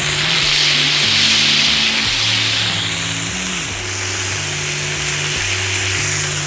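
Beef smash-burger patties sizzling on a hot griddle as they are flipped with two metal spatulas. The sizzle swells loudly over the first couple of seconds as the raw side meets the hot surface, then settles to a steadier hiss.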